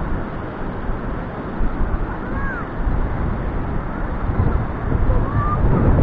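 Wind rushing over the microphone mixed with rough surf breaking on a stony shore, growing louder toward the end; the sea is still churned up, not yet calm.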